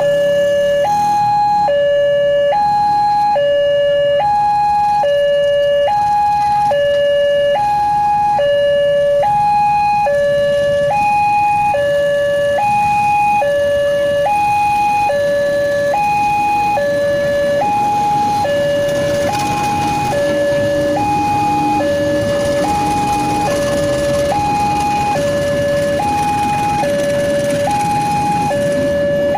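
Railway level-crossing warning alarm, an electronic two-tone signal alternating between a higher and a lower note about once a second, sounding while the barriers are down for a train. In the second half a freight train of oil tank wagons rumbles past over the crossing beneath the alarm.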